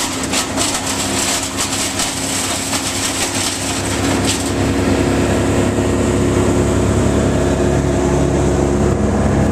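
A large truck engine running steadily at a constant speed, with scattered clicks over the first few seconds.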